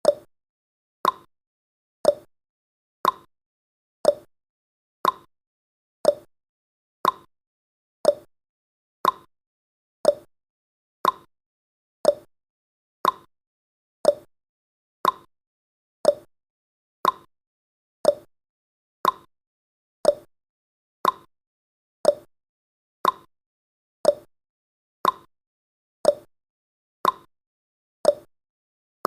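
Countdown timer's clock-style ticking sound effect: a short, sharp tick once every second, steady and even.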